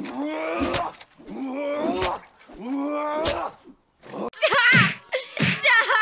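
Three drawn-out groaning cries from a voice, each about a second long. Then, from about four and a half seconds in, a chorus of high cartoon children's voices wailing with a wobbling pitch.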